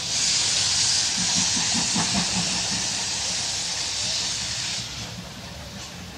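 Steam locomotives, a BR Standard 4MT 2-6-4T and an Ivatt 4MT 2-6-0, moving slowly in reverse: a loud, steady hiss of escaping steam that cuts off sharply near the end, with a brief run of quick low beats under it about a second in.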